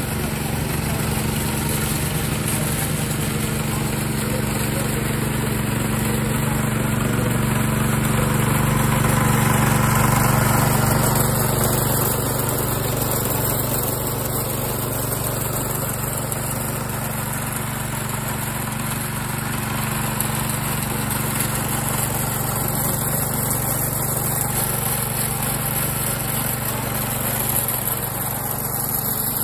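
Small petrol engine on a home-built radio-controlled lawn mower running at a steady speed while the mower drives about. It grows louder as the mower comes close, about ten seconds in, then eases off.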